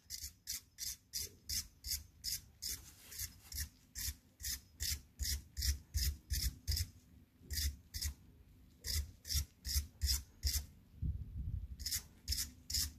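Hand wire brush scrubbing the corroded threads of a steel subframe bolt, quick back-and-forth scraping strokes about three a second, with short pauses about seven seconds in and again near eleven seconds. The bristles are clearing rust and gummed-up corrosion from the thread.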